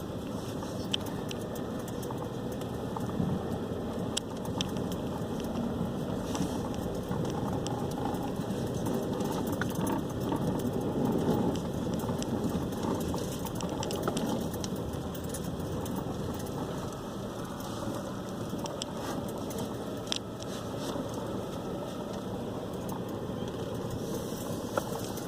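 Strong wind of a windstorm blowing steadily, swelling a little about halfway through, with scattered small clicks and knocks.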